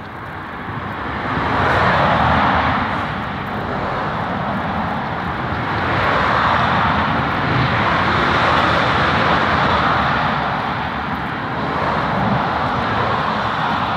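A loud, steady rushing noise, like traffic or an engine heard from afar, that swells and eases several times.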